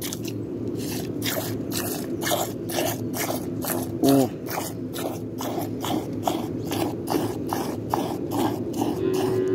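Milk squirting from a cow's teat into a steel cup during hand milking, in a steady rhythm of about three squirts a second.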